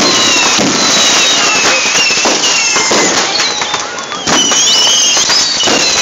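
Loud barrage of consumer fireworks going off at close range: dense crackling and popping bangs overlaid with many whistling fireworks, most whistles falling in pitch, with a cluster of whistles just after four seconds.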